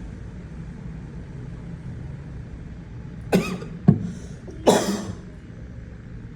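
A person coughing three times in quick succession about halfway through, over a steady low rumble.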